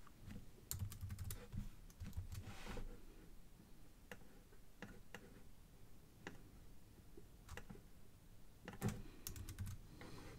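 Faint, irregular clicking at a computer: mouse and keyboard clicks, a few in quick succession about a second in and again near the end, with single clicks in between.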